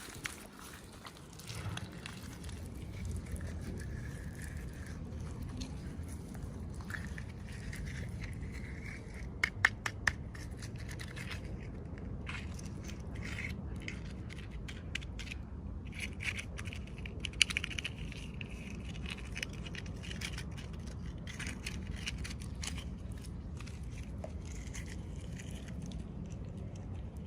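Hands opening plastic toy packaging: crinkling, scraping and clicking, with a few sharp snaps about ten seconds in and again a little later, over a steady low rumble.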